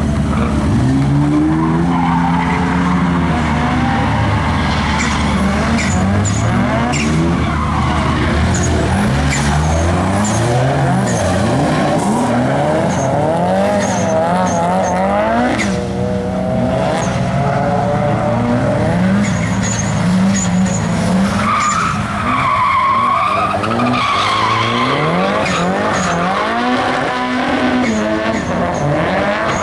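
Nissan 200SX drift car's engine revving, its pitch rising and falling over and over as the car is held sideways through the corners, with tyres squealing. The squeal is loudest in the last third.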